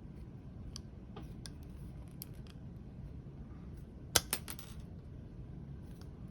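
Milwaukee adjustable wire stripper worked on a small wire: a few light clicks of the tool, then a sharp cluster of snaps about four seconds in as the jaws close and cut the insulation.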